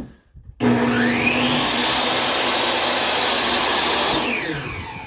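Table saw motor starting up about half a second in with a rising whine, running at full speed, then spinning down near the end.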